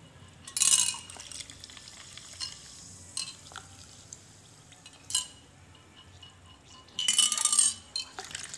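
Goli soda poured from a marble-stoppered glass bottle into a glass: three short bursts of pouring and fizzing with glassy clinks, the longest about seven seconds in.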